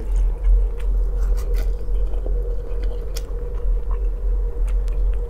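A person chewing a mouthful of noodles and bread, with scattered small mouth clicks, over a steady low hum.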